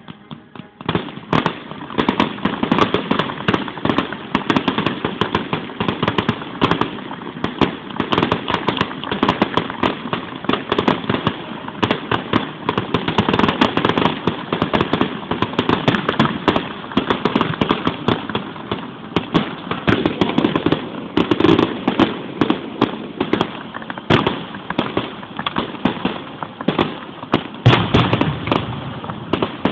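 Aerial fireworks display: a dense, continuous barrage of bangs and crackling, many reports a second, starting about a second in.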